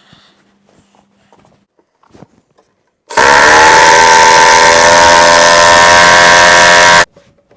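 A loud electric power tool motor starts about three seconds in, rising in pitch as it spins up, then runs steadily for about four seconds with a harsh whine before cutting off abruptly.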